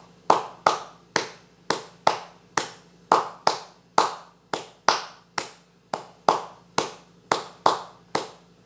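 Hand clapping in the capoeira 'palma de terreiro' rhythm, the paused one-two-three clap, at about two to three claps a second. Some claps are sharper and some duller.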